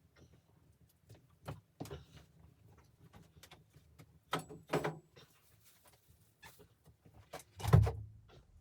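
A series of irregular knocks and clicks, with a heavy low thump near the end as the loudest sound.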